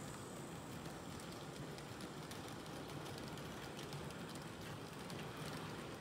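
Märklin H0 model train running on K-track: the BR 185 locomotive and its long rake of car-transport wagons roll along with a steady running noise and many faint ticks from the wheels on the rails.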